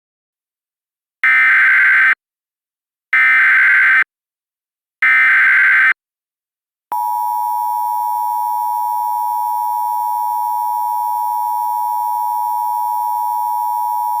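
Emergency Alert System activation tones: three SAME header data bursts, each about a second long with a short gap between, encoding a Flash Flood Warning; then, about seven seconds in, the steady two-tone EAS attention signal begins and holds.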